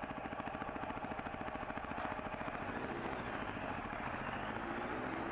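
Off-road motorcycle engine running at low speed and idling with an even, steady pulse while the bike rolls to a stop.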